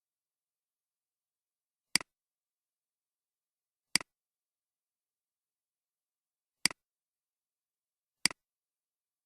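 Four sharp computer mouse clicks a couple of seconds apart, each a quick press-and-release, with dead silence between them.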